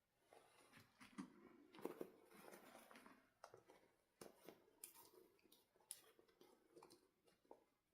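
Faint, irregular clicks, taps and short rustles of small objects being handled close up.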